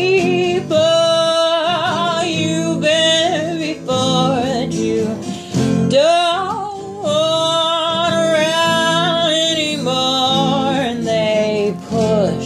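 Slow sung chorus: a solo voice holding long, wavering notes over guitar accompaniment.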